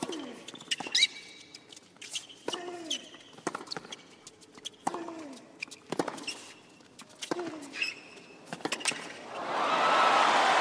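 Tennis rally on a hard court: racket strikes on the ball roughly once a second, several of them with a player's short grunt that falls in pitch. Near the end, when the point is won, crowd applause swells up and stays loud.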